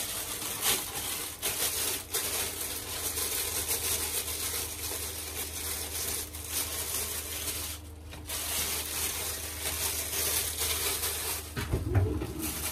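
Kitchen work sounds: a steady hiss broken by a few short pauses, over a low steady hum.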